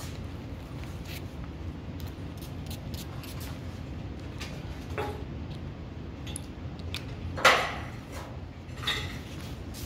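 Belongings and cardboard boxes being handled and shifted about: scattered light clicks and rustles over a steady low hum, with one louder scrape or rustle about seven and a half seconds in and a smaller one near the end.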